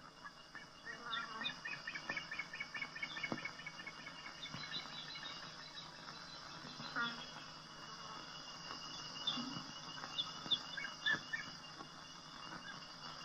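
Faint chirping of small animals: short high calls repeated in quick runs, coming and going, over a low hiss.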